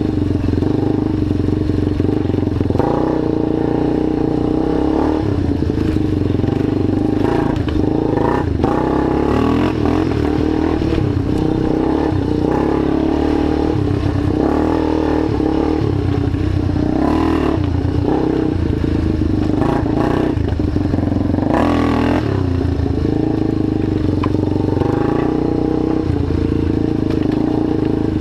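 A rebuilt ATV's engine running hard on a rough dirt trail. The engine note rises and falls with the throttle, and the quad's frame rattles and knocks over the bumps.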